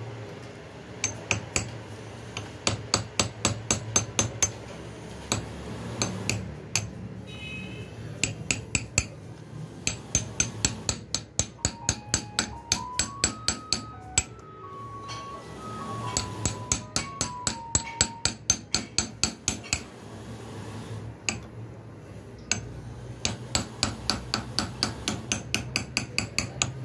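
Light, quick hammer taps on a steel punch set against a broken screw in an air rifle's receiver, knocking it round to back it out without damaging the threads. The taps come in runs of about three a second with short pauses between. A short electronic tune of stepped notes sounds faintly in the middle.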